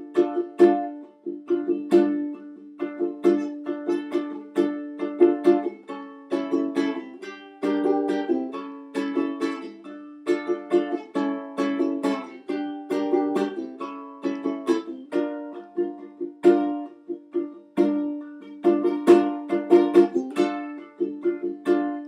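A solo plucked string instrument playing a rhythmic instrumental passage of quick picked and strummed notes, several a second, with no singing.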